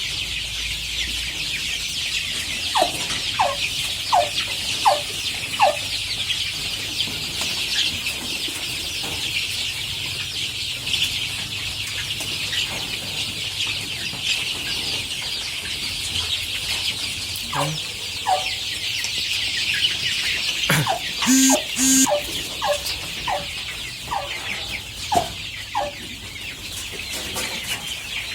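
A large flock of chickens calling at once, a steady dense chatter of many overlapping voices, with single short clucks standing out in runs of four or five about a second apart.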